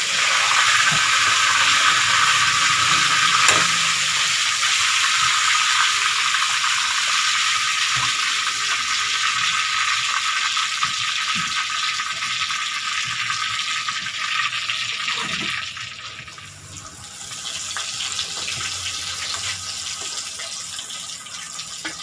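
Hot oil sizzling steadily around a cornstarch-coated pompano deep-frying in a wok, with a few light clicks. The sizzle drops away briefly about three-quarters of the way through, then comes back softer.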